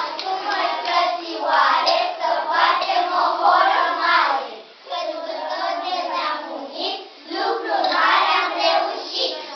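A group of children singing together, breaking off briefly twice.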